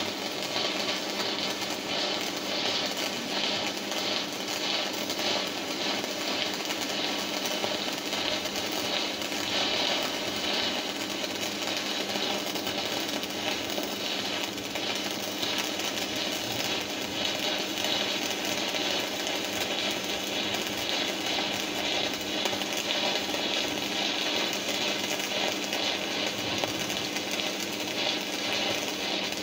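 Stick arc welding: the electrode's arc crackling and sizzling steadily as a straight-line bead is laid on a metal plate, the portable arc welding machine set to 90 amps.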